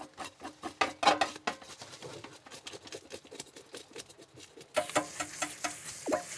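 A blade scraping the scales off a largescale blackfish in a metal tray: a quick run of sharp, scratchy strokes and clicks. About three-quarters of the way through, a steady hiss comes in under it.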